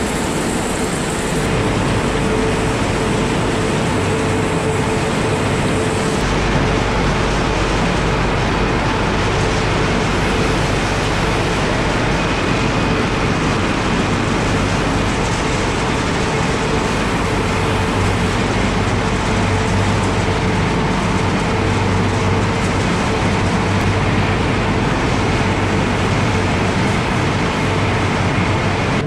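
Steady machinery noise of a cherry processing line, conveyor belts and their motors running, with a steady hum under it.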